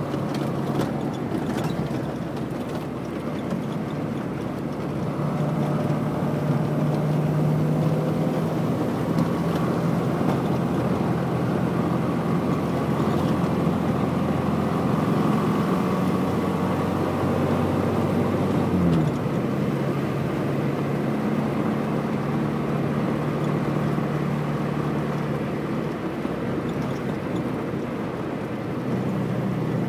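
1965 Morris Minor's four-cylinder A-series engine running steadily while driving, with road noise from the wet tarmac. About two-thirds of the way through, the engine note drops suddenly, then settles into steady running again.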